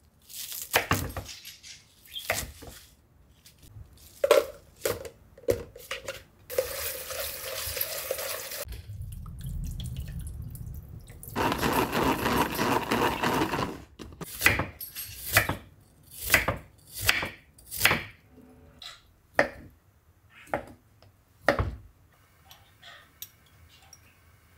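Kitchen prep sounds: a knife chopping spinach stems on a wooden cutting board, then a stretch of running water. Around the middle, a salad spinner whirs for a few seconds, followed by scattered clicks and knocks of handling utensils.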